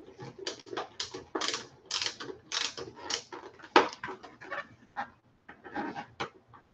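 Clattering and scraping of a plastic visor and its screw against a football helmet shell as the visor is held in place and the first screw worked in: a quick, uneven run of short rattles and clicks that stops near the end.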